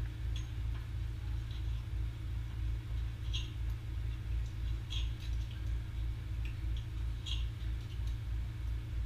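A constant low hum that wavers in level, with a few faint, sharp clicks of a knife and fork against a plate as steak is cut.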